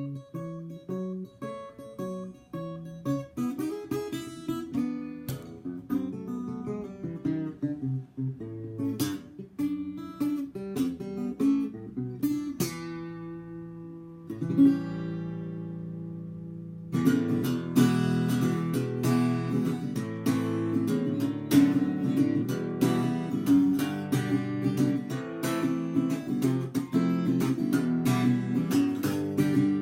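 Eko NXT parlour-size acoustic guitar being played: picked notes and chords at first, then a chord left ringing and slowly fading past the middle, then steady, louder strumming for the rest.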